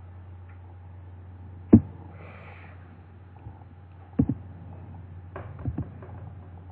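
Quiet room tone with a steady low hum, broken by one sharp click a little under two seconds in, a soft short hiss just after it, and a few smaller clicks and taps later on.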